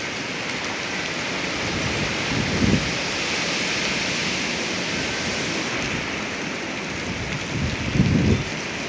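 Strong windstorm wind: a steady rushing hiss, with low buffeting gusts on the microphone about a third of the way in and again near the end.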